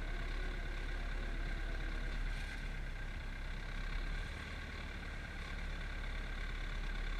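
Zetor tractor's diesel engine running steadily, heard from inside the closed cab.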